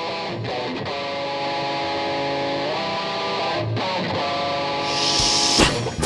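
Live rock band playing an instrumental passage: guitars ringing out held chords that change a couple of times, over bass. A hissing swell builds near the end.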